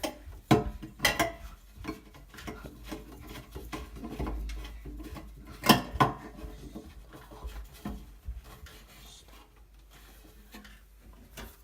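Plastic aquarium plumbing pipes being handled and pushed into place: scattered clicks, knocks and scraping, the sharpest knock about six seconds in.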